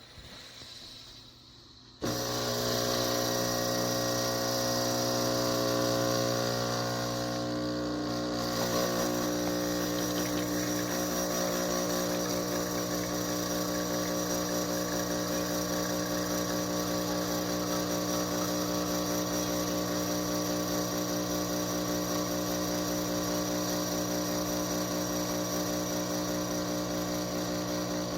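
Breville Barista Touch Impress espresso machine's pump running while pulling an espresso shot: a steady, loud hum that starts suddenly about two seconds in and shifts slightly in tone about eight seconds in.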